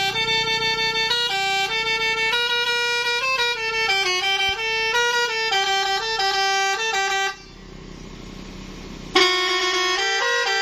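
Basuri telolet multi-trumpet air horn on a bus playing a stepping melody of horn notes. It cuts off about seven seconds in, leaving a quieter hiss, and starts again abruptly and loudly about two seconds later.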